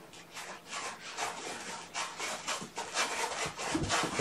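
A kitten digging and scratching in cat litter: repeated raspy scraping strokes, a few each second.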